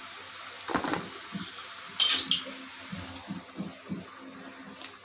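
Hot oil sizzling steadily as urad dal vadas finish deep-frying in a kadhai, with a few sharp clinks of the steel slotted spoon, the loudest about two seconds in.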